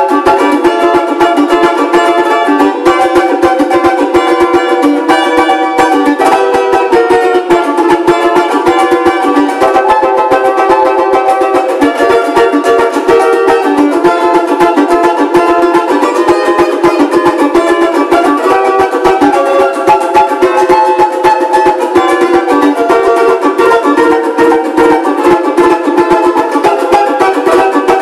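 A newly refurbished Brazilian banjo (banjo cavaquinho) strummed fast with a pick: a continuous run of chords with many strokes a second, keeping a steady rhythm.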